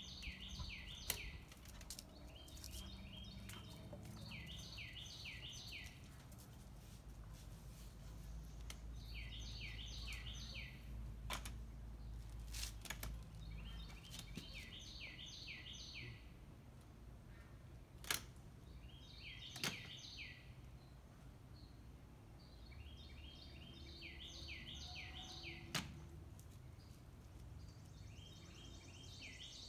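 A songbird singing a repeated phrase of quick, downward-sliding whistled notes every few seconds over a low steady rumble. A few sharp knocks stand out, the loudest about 18, 20 and 26 seconds in.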